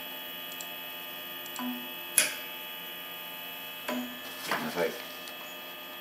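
Homemade ventilator prototype running: a steady electrical hum from its stepper motor drive. A sharp click about two seconds in is an electric valve switching during the breathing cycle, and a few brief softer sounds follow between four and five seconds.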